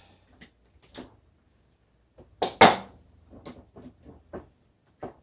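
Metal F-clamps being loosened and taken off a workpiece: a series of metallic clicks and clanks, with two loud clanks about two and a half seconds in.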